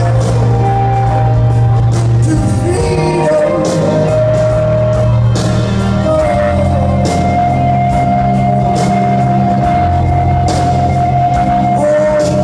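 Live band performing a slow rock song in a concert hall, with steady bass and chords under a male singer's voice holding long notes.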